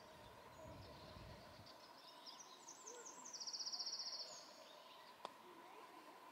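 A small songbird singing: a run of quick high notes that builds into a fast, even trill about three seconds in. There is a faint low rumble at the start and a single sharp click near the end.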